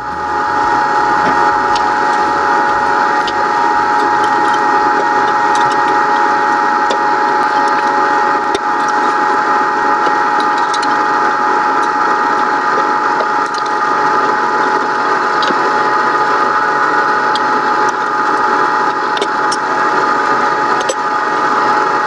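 Tarrington House compressor ice cream maker running, its stirring paddle churning the freezing ice cream mix: a steady mechanical whir with scattered faint clicks.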